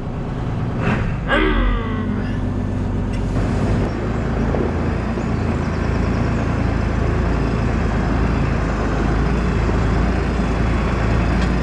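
Farm tractor engine running steadily just after starting, with a short voice sound about a second in.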